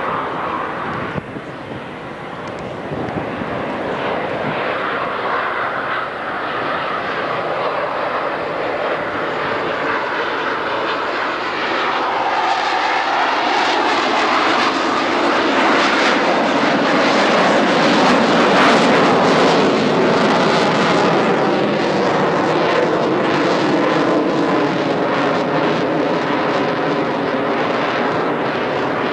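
Jet noise from two F/A-18 Hornets' General Electric F404 turbofan engines during a slow, nose-high high-alpha pass. The sound builds steadily, drops lower in pitch as it reaches its loudest about two-thirds of the way through, then eases slightly.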